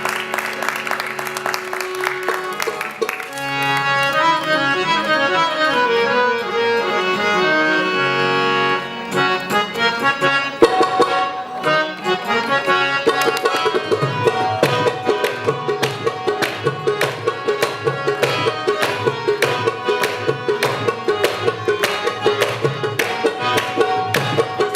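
Qawwali instrumental introduction: a harmonium plays a melodic opening, and partway through a tabla comes in with a steady beat of about two strokes a second under the held harmonium notes.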